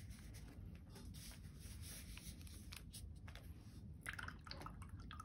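Faint soft strokes of a watercolour brush dabbing paint onto sketchbook paper, a few light brushing touches over a low room hum.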